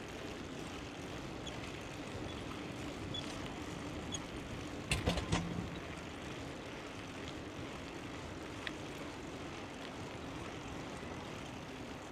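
Steady rumble of wind and tyre noise from a moving bicycle, with a quick cluster of sharp clicks about five seconds in.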